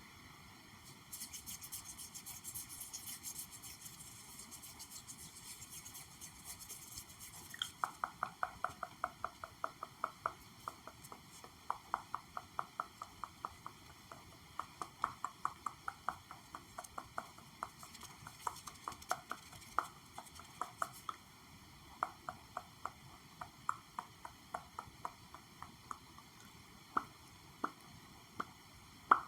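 Fingers tapping on objects: first several seconds of fast, light, crisp tapping, then from about eight seconds in hollow, pitched taps in quick runs that thin out to single taps near the end.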